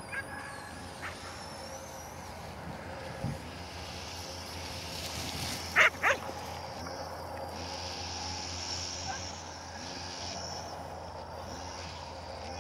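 A dog barks twice in quick succession about six seconds in, sharp and loud. A faint low droning hum runs underneath.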